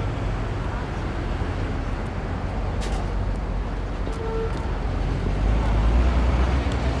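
City street traffic: a steady wash of engines and tyres with a heavy low rumble that swells late on as a large vehicle goes by. A sharp click about three seconds in and a short tone, like a brief horn, a little after four seconds.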